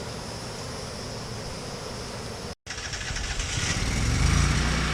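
Steady background hum, then after a sudden break a motor vehicle engine running, rising in pitch and then holding steady.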